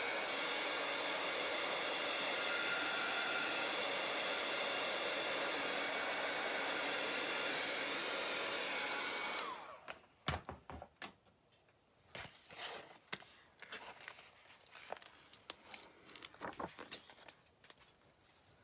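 Handheld hot-air dryer blowing steadily to dry wet chalk paste on a painted tag, switched off about nine and a half seconds in and winding down. Small taps and rustles of the tag and stencil being handled on the table follow.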